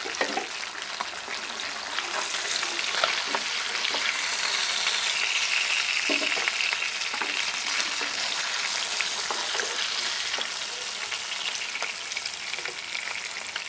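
Hilsa fish steaks sizzling in hot oil in a non-stick frying pan, with scattered light clicks of a spatula against the pan as the fried pieces are lifted out.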